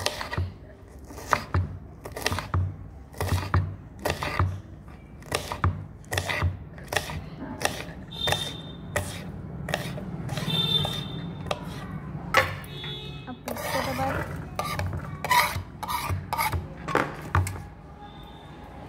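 Kitchen knife chopping green chillies on a plastic cutting board: a steady run of sharp knocks, about two a second, that stops shortly before the end.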